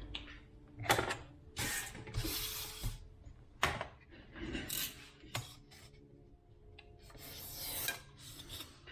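A craft knife cutting through a piece of foam offcut, with a series of scraping, rubbing strokes and a few sharp clicks.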